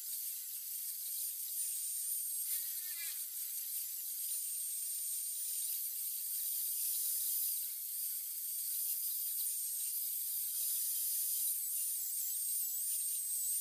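Handheld angle grinder running against a workpiece: a high, steady whine over hiss, its pitch wavering and dipping briefly as the disc is pressed on, most noticeably near the end.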